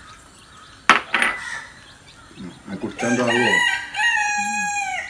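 A rooster crowing: a cock-a-doodle-doo in the second half, ending in one long held note. A sharp click comes about a second in.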